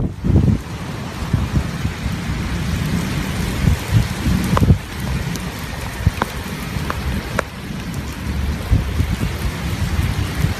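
Wind-driven rain: a steady hiss of heavy rain with gusty wind rumbling on the microphone, and a few sharp ticks of drops now and then.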